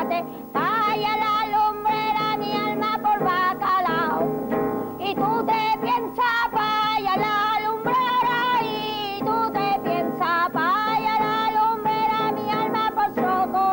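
A woman singing a song in Spanish with a wavering vibrato, accompanying herself on a strummed acoustic guitar.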